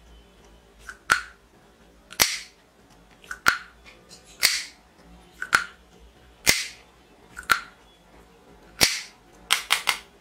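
Cheap plastic toy pistol being fired over and over, giving sharp snaps about once a second, then three in quick succession near the end.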